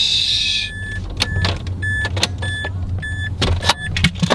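A car's electronic warning chime beeping in a high tone about twice a second for roughly two and a half seconds, over a steady low hum with a few clicks. A rushing hiss cuts off just before the beeping starts.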